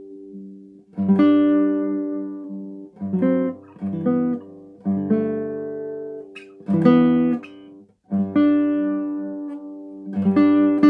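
Nylon-string classical guitar with a cutaway, played fingerstyle: slow plucked chords and short melodic figures, each left to ring and die away, with a brief pause just before the last chord.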